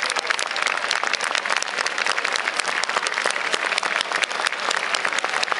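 A large crowd applauding steadily: many hands clapping at once in a dense, unbroken clatter, with crowd voices underneath.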